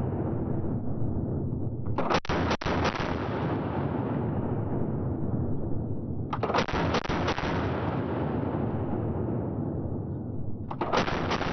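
DP-27 light machine gun in 7.62×54mmR firing three short bursts of automatic fire, about two seconds in, about six seconds in and near the end. Each burst is followed by a long echo that fades slowly.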